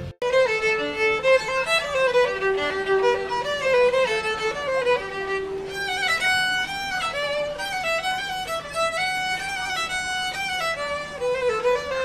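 A violin playing a solo melody, with held notes and pitch slides between them.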